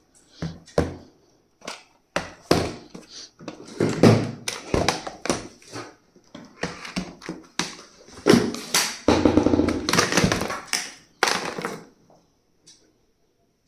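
Stationery items being handled and set down: an irregular run of taps, knocks and rustling, busiest a little past the middle and stopping shortly before the end.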